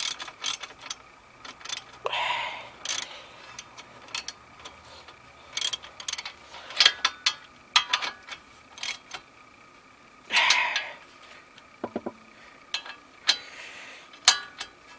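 Hand ratchet clicking on its return strokes as a 19 mm brake bolt is tightened. The clicks come in irregular short runs with pauses between them.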